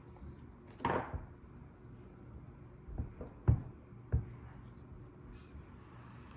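A puzzle box being handled and worked: a short scrape as a part slides about a second in, then three knocks as pieces clack into place.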